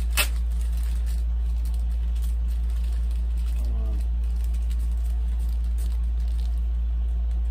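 Clear plastic bag rustling and crinkling as a part is worked out of it, with one sharp snap about a quarter second in. A steady low hum runs underneath.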